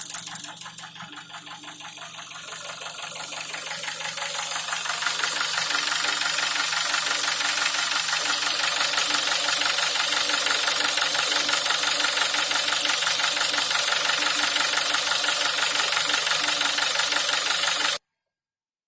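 Nissan Wingroad's QG18DE 1.8-litre four-cylinder engine running on LPG, with a fast, even chattering that comes from the gas injectors over a knock from the lower part of the engine. It grows louder over the first few seconds, holds steady, and cuts off suddenly near the end.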